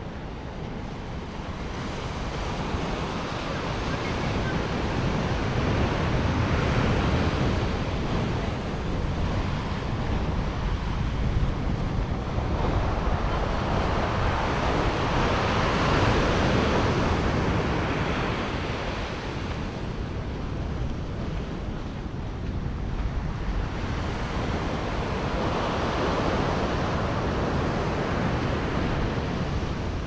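Ocean surf breaking and washing up the shore, swelling and fading in slow surges about every ten seconds, with wind rumbling on the microphone underneath.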